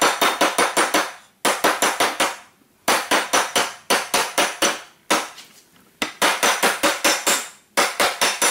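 Rapid metal-on-metal hammer taps, about seven a second, in five quick runs with short pauses, driving a bearing race into the end of a Massey Harris tractor's steering shaft.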